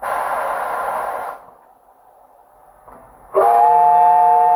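Steam locomotive letting off a loud hiss of steam for about a second. Then, a couple of seconds later, its steam whistle sounds a steady chord of several tones, held on past the end.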